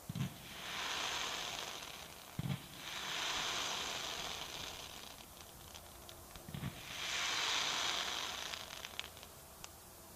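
The last shots of a Kometa P7963 Nowa Fundlandia firework cake (130 shots, 1.2-inch): three launch thumps a few seconds apart, each followed by a hiss lasting about two seconds. A few faint crackles come near the end.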